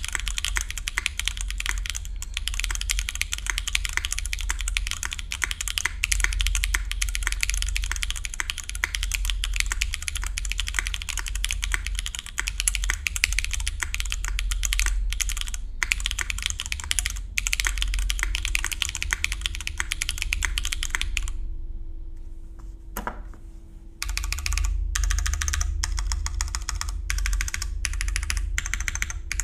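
Typing on a Kei R1 custom mechanical keyboard: an undampened full-aluminium-plate build with Frankenswitches (Cherry housings with U4t stems, lubed with 205g0) and GMK keycaps. It is a fast, steady run of keystrokes. About three quarters of the way in the typing stops for roughly three seconds, with one lone keystroke, then picks up again.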